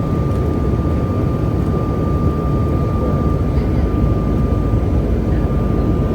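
Steady in-flight cabin noise of a CRJ-550 regional jet: a low rumble of airflow and the rear-mounted GE CF34 turbofans, with a thin steady whine above it.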